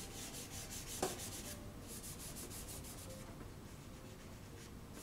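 Charcoal scratching across toned drawing paper in quick back-and-forth strokes, about five or six a second for the first second and a half, then softer and more spaced out, with a light tap about a second in.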